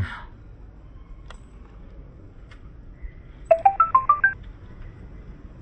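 Mobile phone ringtone or notification: a quick run of about eight electronic notes, lasting under a second, about three and a half seconds in.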